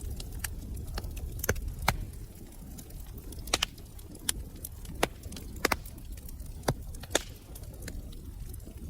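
Wood fire crackling in a fireplace: irregular sharp pops and snaps, about eight loud ones among many faint ticks, over a steady low rumble of the burning fire.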